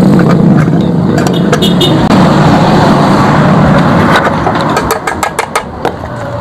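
Yamaha RX-King two-stroke motorcycle engine running through its hollowed-out exhaust, with irregular sharp cracks that come thicker in the last couple of seconds.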